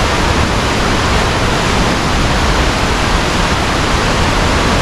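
Steady, loud rushing noise without a break, heavy in the low end: wind on the microphone or rushing water at the fishing spot.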